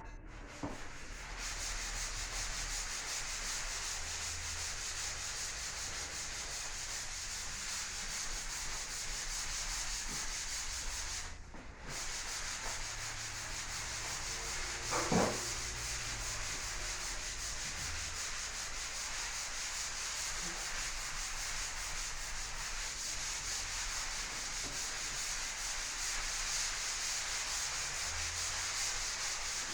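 Drywall being sanded: abrasive rubbing on dried joint compound, a steady hissing scrape that pauses briefly a little over a third of the way in. A short, sharper sound stands out about halfway through.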